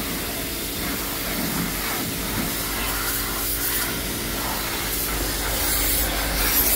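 Pressure washer spraying a dirt bike: a steady hiss of the water jet, with the washer's motor humming underneath.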